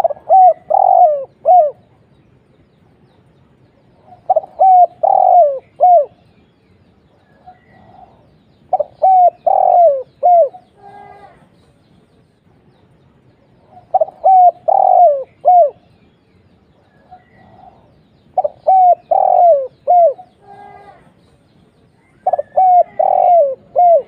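Spotted dove (tekukur) cooing: a phrase of several low, hooting coo notes, repeated six times about every four to five seconds.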